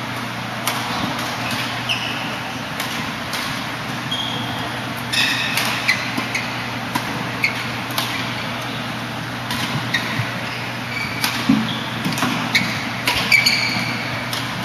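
Badminton rally: rackets striking the shuttlecock in sharp clicks every second or so, with brief high squeaks of shoes on the court floor, over a steady low hum of the hall.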